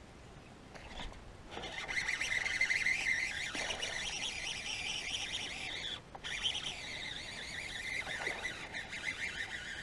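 Baitcasting reel being cranked to retrieve line, a steady gear whir that starts about a second and a half in, pauses briefly partway through, then runs on again.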